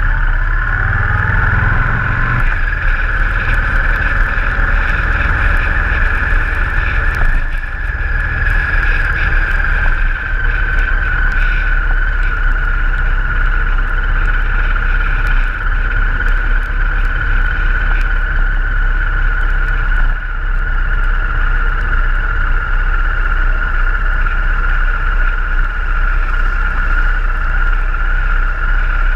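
Motorcycle engine running steadily under way, mixed with rushing wind over the bike-mounted microphone. In the first couple of seconds the engine pitch rises as it accelerates, then levels off.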